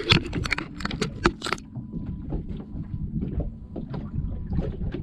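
Water slapping and lapping against the hull of a small drifting boat, with wind on the microphone. A quick run of sharp clicks and knocks comes in the first second and a half.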